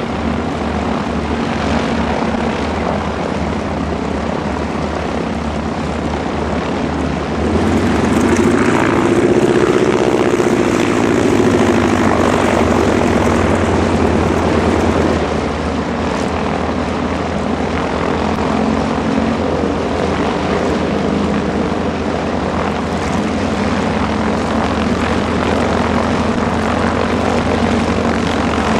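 Grumman TBM-3E Avenger's Wright R-2600 fourteen-cylinder radial engine running at low taxi power, propeller turning. It grows louder about eight seconds in and eases back around fifteen seconds.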